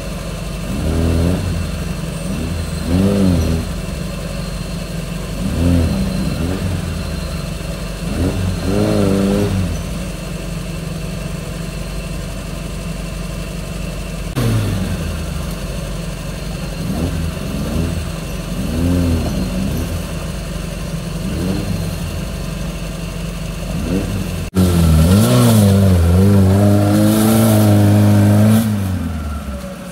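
Suzuki Jimny 4x4 engine revving again and again as it crawls up a rough trail, each rev rising and falling every two or three seconds over a steady low engine hum. Near the end a louder, closer stretch of revving comes in suddenly and fades out just before the end.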